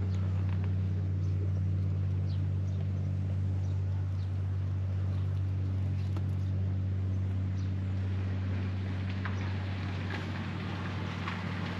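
Steady low mechanical hum, even in pitch and level, with a few faint high ticks and chirps over it.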